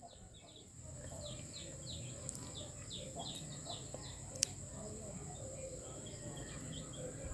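Faint birds chirping in the background: a run of short, quick downward chirps repeating through most of the stretch, over a low hum and a steady high whine. A single sharp click about four and a half seconds in.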